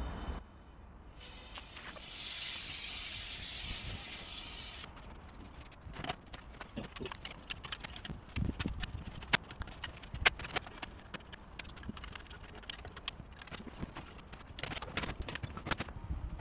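A loud hiss for about three seconds that cuts off abruptly, then scattered light metallic clicks and knocks as the Chaika ML-20B outboard's stuck cylinder and crankshaft are handled with tools.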